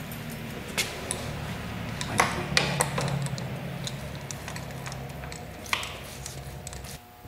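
A few light clinks and knocks of objects being handled, over a steady low hum that drops away near the end.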